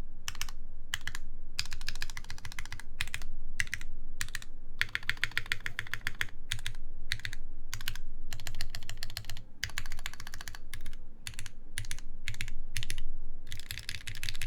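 Typing on a Keycult 2/65 mechanical keyboard with a full brass plate, Krytox 205g0-lubed ZealPC Tealios linear switches and GMK keycaps. Quick runs of keystrokes are broken by short pauses and single key presses.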